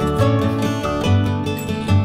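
Background music: a tune of quick plucked-string notes with a steady rhythm.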